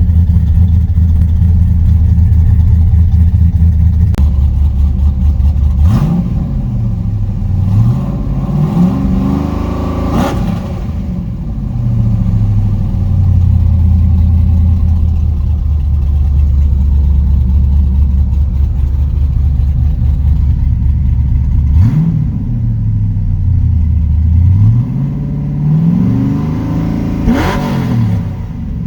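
Cammed, straight-piped LS V8 in a Chevy Silverado running on a cold start after months of sitting. It idles with a deep, steady note and is revved in two bouts, about six seconds in and again past twenty seconds; each time the pitch climbs and falls a couple of times before settling back to idle.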